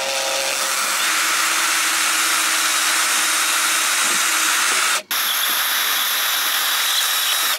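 Electric drill with a twist bit boring through a plywood panel. It runs steadily for about five seconds, stops for a moment, then bores a second hole until it cuts off suddenly. These are starter holes to let a jigsaw blade into the cut.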